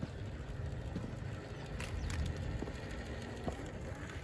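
Wind rumbling on the microphone, with a few light ticks and scrapes from a 1/10-scale RC crawler truck's tyres and drivetrain as it climbs a concrete slope.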